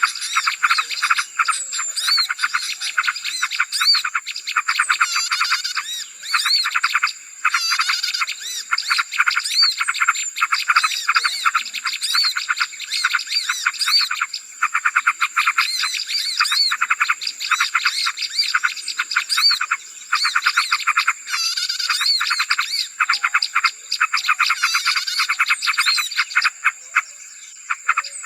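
Dense, noisy chorus of many small birds chirping and chattering rapidly over one another, with a steady high whine running underneath; a bird-lure recording made to draw in small birds.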